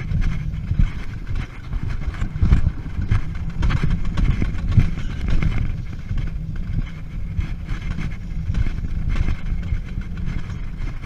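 Alpine coaster sled running fast down its steel rail track: a continuous rumble and rattle of the sled on the rail.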